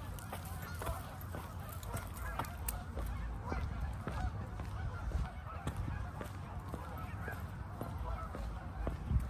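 A large flock of Canada geese honking continuously, many calls overlapping, with a low thump near the end.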